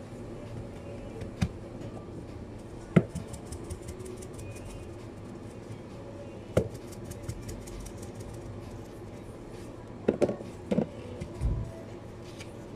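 Steady kitchen hum with a few short sharp knocks and clatters of utensils and containers handled on a sushi counter, one loud knock about three seconds in and a quick cluster of them near the end.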